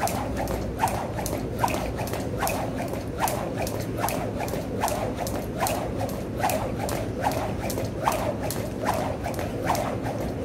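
Jump rope skipping: the rope and feet tap the floor in a steady, even rhythm of about two to three light strikes a second.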